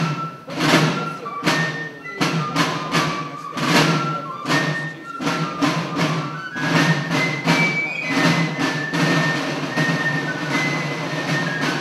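Music with a beat of sharp percussive strikes about twice a second under a line of short held notes; the strikes thin out about eight seconds in.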